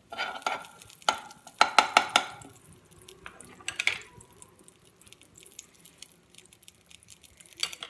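A spoon knocking and scraping against a nonstick pan as ghee is tapped off it, a run of sharp knocks over the first four seconds. After that comes only faint sizzling as the butter and ghee start to warm in the pan.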